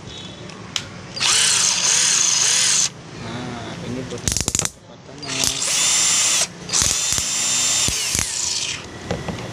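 RYU RCD 12V cordless drill running with no load in three bursts of one to two seconds each, its motor whining high and rising and falling in pitch as it speeds up and slows down. A rapid cluster of clicks comes between the first and second bursts.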